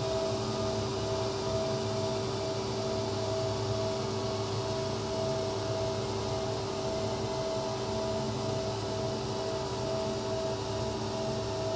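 DC generator of a 1971 Flohr Otis lift's motor-generator set coasting down toward a stop after being switched off. It makes a steady hum with two clear tones over an even whirring noise.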